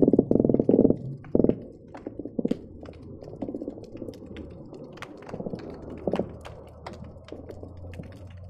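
Croakers drumming underwater, picked up by hydrophones: a loud run of rapid, buzzy pulsed croaks in the first second and a half, then fainter croaking bursts every second or so. Scattered sharp clicks and pops sound over a steady low hum.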